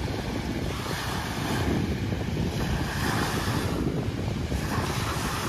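Small waves breaking and washing up a gravel beach, with wind buffeting the microphone in a low, fluttering rumble.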